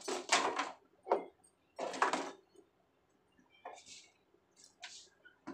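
Jars and plastic containers handled on a kitchen shelf: a handful of short knocks and scrapes as they are picked up and set down, the loudest in the first half.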